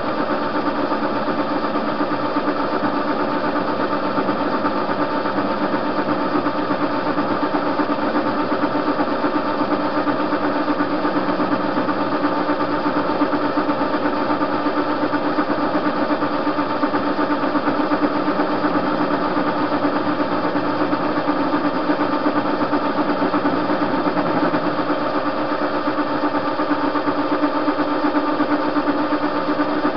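TV-16 metal lathe running steadily under power feed while turning down a metal bar: a constant motor and gear hum with several steady tones, unchanging throughout.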